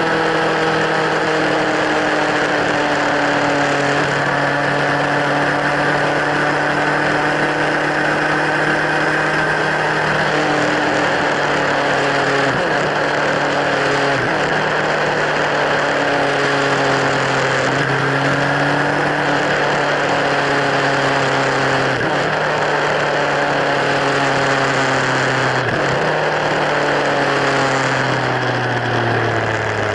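Kawasaki Z1000's inline-four engine running through LeoVince slip-on mufflers under way. The note holds fairly steady with a few small steps in pitch, then falls away near the end as the bike slows.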